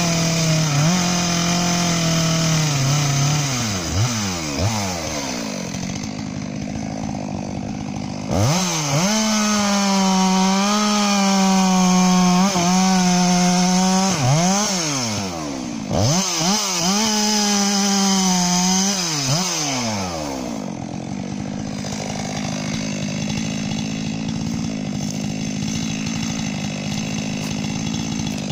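Stihl MS 462 two-stroke chainsaw cutting a log at full throttle. The revs drop to idle about three seconds in, then rise again for two more long cuts of several seconds each, with short dips between. Near the end it falls back to a steady idle.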